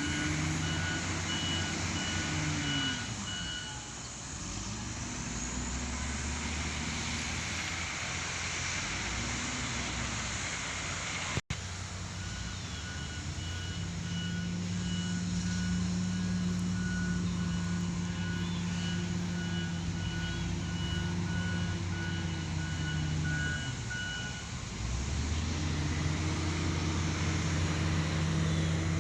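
Excavator's diesel engine revving up and down repeatedly, then held at high revs for about ten seconds before easing off and picking up again. A rapid beeping alarm sounds for the first few seconds and again through the long high-rev stretch, the kind of alarm an excavator gives while moving.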